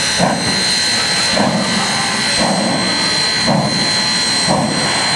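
1913 0-4-0 steam locomotive hissing steadily, with a rhythmic steam beat about once a second over the hiss.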